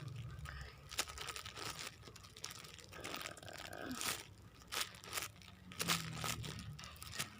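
Irregular crinkling and rustling with scattered small clicks as squishy toys are handled.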